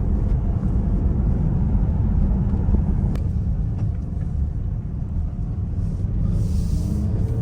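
Steady low rumble of a Ferrari Purosangue's V12 and road noise, heard from inside the cabin while driving, with a brief hiss near the end.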